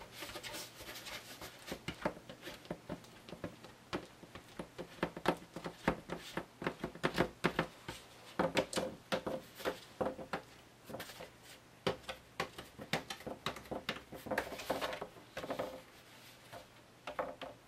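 Hands spreading glue over a foam core board: irregular light taps and clicks with a few short squeaky rubs.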